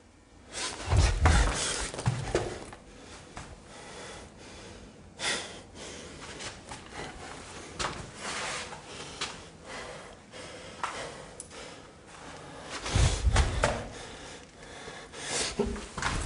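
Footsteps of a person walking slowly through a corridor, with rustling and handling noise. There are heavier thumps about a second in and again near the end.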